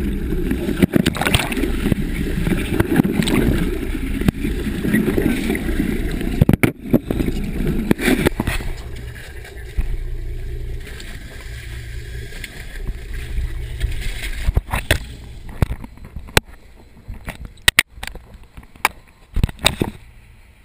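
Water sloshing and splashing around the camera at the surface beside a boat's hull for the first several seconds. After that it goes quieter, and a string of sharp knocks and clicks follows near the end as the camera is handled.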